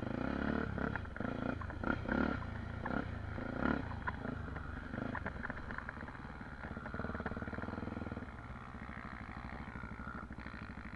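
Dirt bike engine running with the throttle blipped repeatedly in the first few seconds, then settling to a steadier, evenly pulsing run near the end.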